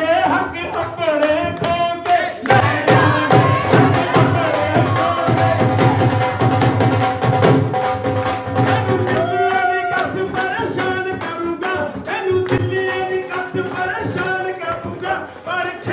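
A man singing a Punjabi song into a handheld microphone for bhangra dancing, with a fast drum beat coming in about two and a half seconds in and easing off near the middle, after which the singing carries on over lighter percussion.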